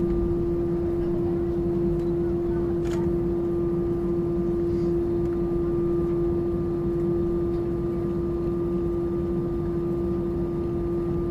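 Steady cabin hum of an Airbus A320, with engine and air-conditioning noise carrying one constant droning tone that does not rise or fall. A faint click about three seconds in.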